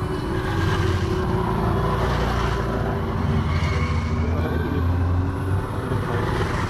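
Motorcycles riding past one after another on a rain-wet road, their engine sound swelling and fading as each bike goes by.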